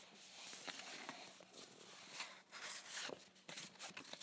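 Faint gusting wind hiss on a beach, uneven in level, with many small clicks and rustles scattered through it.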